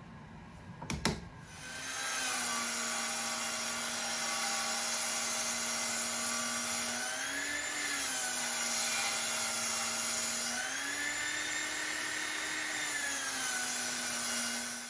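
An electric power tool's motor starts after a couple of clicks and runs steadily with a high hum. Its pitch rises briefly twice as the load on it changes, and it cuts off abruptly at the end.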